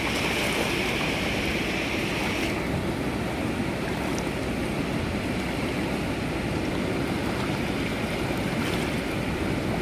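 Steady rush of a fast-flowing river running over stones, with no break. A higher hiss in it drops away about two and a half seconds in.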